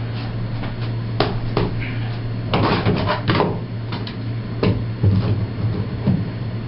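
Scattered knocks and clicks of hands handling a Corecell foam sheet and plastic one-handed bar clamps, with a quick cluster about a third of the way in, over a steady low hum.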